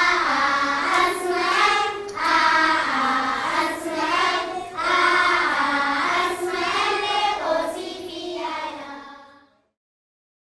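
A class of young schoolgirls singing together as a group, in short repeated phrases. The singing fades out about nine seconds in.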